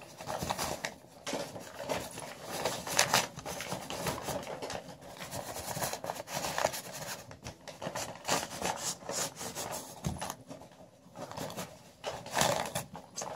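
A sheet of junk mail rustling and crinkling as it is waggled under a door while a cat paws and bites at it, in irregular scratchy bursts.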